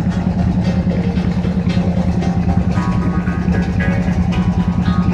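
Motorboat engine running steadily, a fast even low throb with no change in speed.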